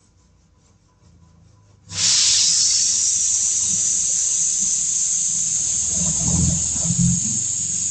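Near silence, then about two seconds in a loud, steady hiss starts suddenly and keeps going without a break.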